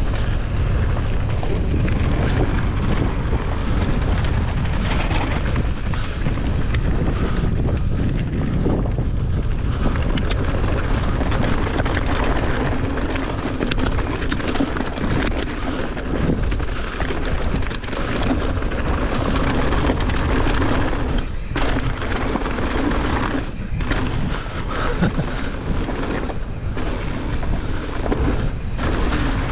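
Mountain bike running fast down a dry, stony trail: a continuous rumble of wind on the camera microphone, with tyres crunching over gravel and the bike rattling over bumps. A low steady hum joins about twelve seconds in.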